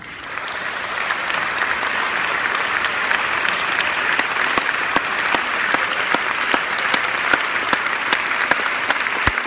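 Audience applauding: dense clapping that builds within the first second and then holds steady, with a few louder single claps close by near the end.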